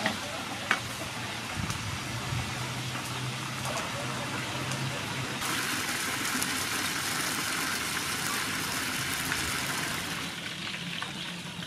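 Hot oil sizzling in a frying pan, with a couple of knocks of a wooden spatula against the pan in the first second. About five and a half seconds in the sizzle grows louder and brighter.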